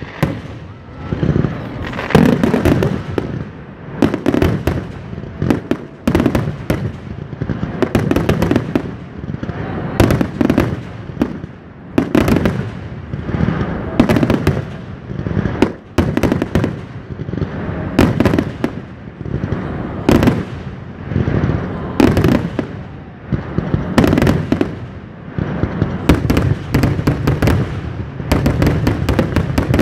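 Fireworks going off one after another: shells launching and bursting in the sky, with loud bangs about every two seconds and crackling in between.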